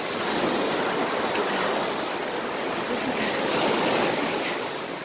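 Small shore waves breaking and washing up over sand: a rushing hiss that swells twice and fades away near the end.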